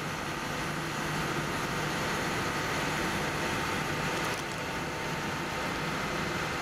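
Steady mechanical hum with a faint whine, from a lake freighter's deck crane hoisting a loaded supply pallet.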